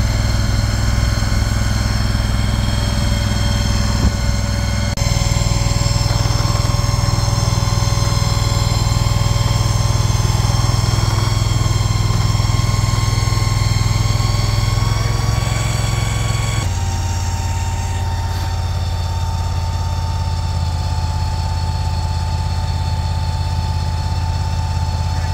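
Engine of a Mule shed-moving machine running steadily. Its sound shifts abruptly about five seconds in and again near seventeen seconds.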